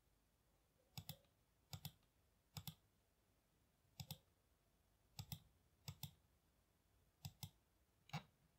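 Faint computer mouse clicks, about eight of them at an uneven pace, each a quick double tick of the button going down and coming up, as no-connect flags are placed on unused pins in a schematic editor.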